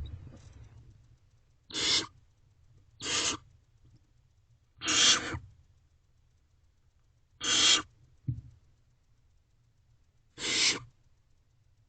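Barn owlets giving rasping, hissing screech calls: five drawn-out bursts a second or two apart. A short low thump comes about two-thirds of the way through.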